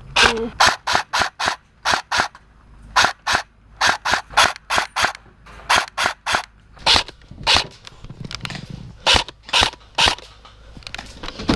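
Airsoft guns firing single shots close by: about two dozen sharp cracks in quick runs, often three or four a second, thinning out in the second half with a gap of a second or so before a last few shots.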